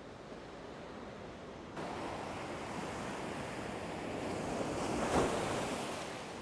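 Ocean surf breaking on a sandy beach: a steady wash of waves that builds to a loud crash of a breaking wave about five seconds in, then eases off.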